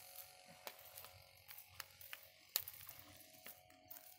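Faint, irregular crackles and pops from a smouldering wooden fire-test crib just knocked down with dry chemical powder, with one sharper crack about two and a half seconds in.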